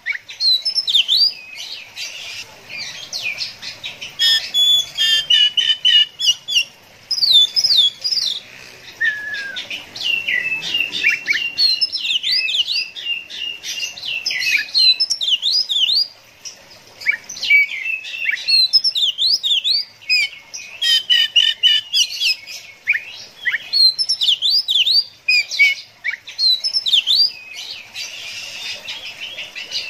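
Oriental magpie-robin singing a long, loud, fast and varied song of whistled notes, sharp chirps and rapid trills, with only brief pauses.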